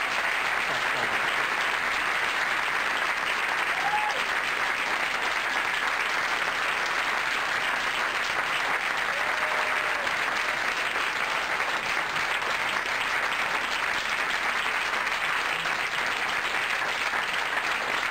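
Audience applauding, a long steady round of clapping.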